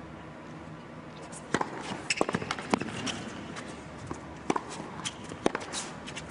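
Tennis rally on an indoor hard court: sharp pops of racket strikes and ball bounces, starting about a second and a half in and coming roughly once or twice a second, with footwork on the court, over a hushed arena.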